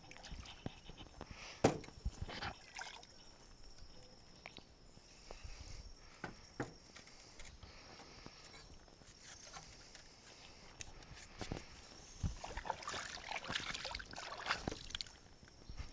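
Wet wire-mesh baskets hauled up by rope and dropped into an aluminium boat: dripping water with scattered knocks and rattles against the hull, the sharpest about two seconds in. Near the end, a spell of splashing as hands are rinsed in the water over the side.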